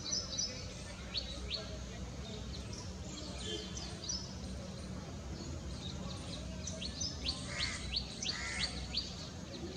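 Small birds chirping: repeated short, high notes that each drop in pitch, coming faster, about two a second, in the second half. Under them runs a steady low rumble of outdoor background noise.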